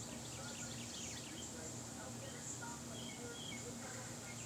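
Birds chirping in many short, quick calls over a steady high-pitched hiss.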